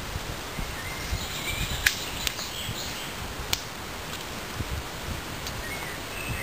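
Leafy branches rustling as they are gathered and carried, with a couple of sharp cracks of snapping twigs, the louder about two seconds in and another about three and a half seconds in.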